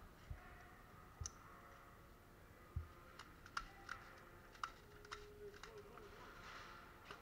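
Faint, irregular sharp clicks, about ten in the last four seconds, with a few soft low thumps earlier: distant airsoft gunfire in an indoor arena.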